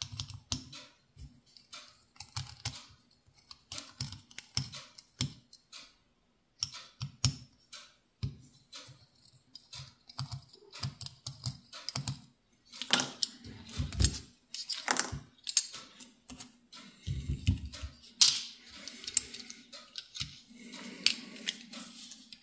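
Irregular small metal clicks and taps as an Allen key turns screws out of a height gauge's scriber-holder assembly and the metal parts are handled and separated. A faint steady hum runs underneath.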